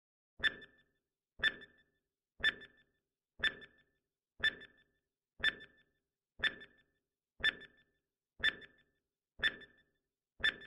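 Countdown timer sound effect ticking once a second, eleven times. Each tick is short and sharp with a high pitched ring.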